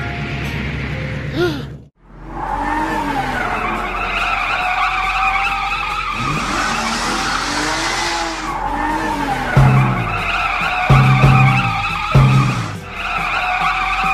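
Cartoon car sound effects: a long wavering tyre squeal, with music underneath. The sound cuts out sharply about two seconds in before the squeal starts, and a few thumps come in the second half.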